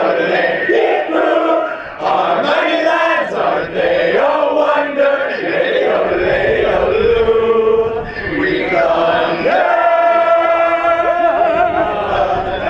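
A crowd yodeling together, led by a man's voice amplified through a microphone. The voices jump quickly up and down between notes, then settle into one long held note near the end.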